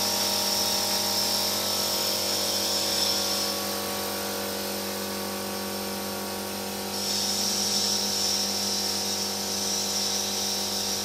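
Plastic corrugated pipe production line running: a steady machine hum with several constant tones, and a high whine that fades about three and a half seconds in and comes back about seven seconds in.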